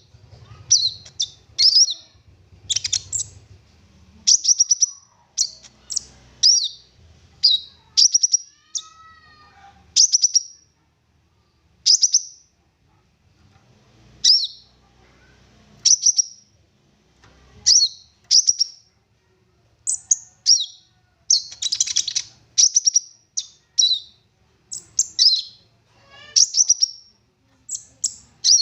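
A konin songbird singing a fast, full song of short, high chirps and rapid trills, about one phrase a second, laced with imitations of other birds' calls.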